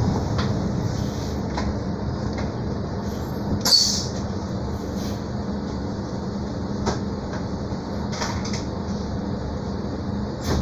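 Inside a Mercedes-Benz O-500 U city bus on the move: the engine's steady low hum, with bodywork rattles and small clicks now and then and one sharp knock about four seconds in.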